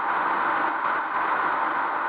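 Steady rush of wind and road noise on a camera mounted on a moving motorcycle, an even hiss with no sudden events.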